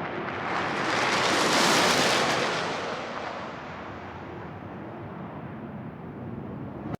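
Jet aircraft flyby: a rushing roar that swells to its loudest about two seconds in, then fades into a lower rumble as the jet passes and recedes, cut off abruptly at the end.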